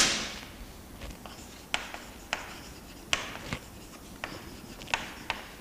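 Chalk writing on a blackboard: a run of short, irregular taps and scratchy strokes as letters are written. A sharp knock right at the start is the loudest sound.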